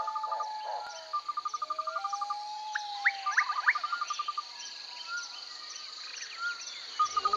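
Jungle ambience: a steady high insect drone under repeated rapid trills and whistled bird calls, with a few quick upward-sweeping calls about three seconds in.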